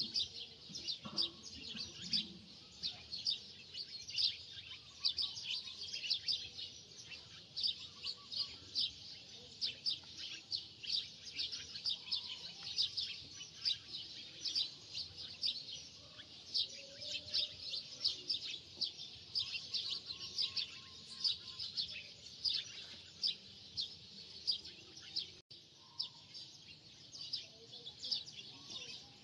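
A chorus of small birds chirping continuously, many short high chirps a second.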